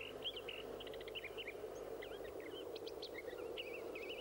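Small birds chirping and twittering in a busy chorus of short, quick calls, over a steady low hum.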